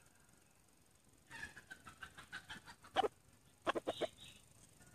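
Male red junglefowl calling: after a quiet second, a rapid run of clucks, then a few louder, sharper notes near the end.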